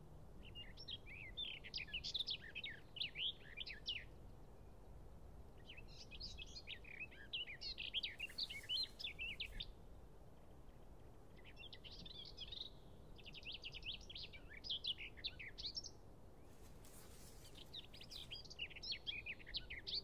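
A songbird singing: five phrases of rapid, twittering notes, each a few seconds long, with short pauses between them.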